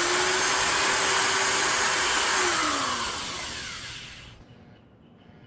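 Small electric motor spinning up with a rising whine, running steadily for about three seconds, then winding down and fading out about four seconds in.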